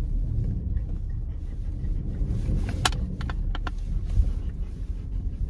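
Low rumble of a 2017 Hyundai Tucson driving, heard from inside the cabin, with a few sharp clicks about three seconds in.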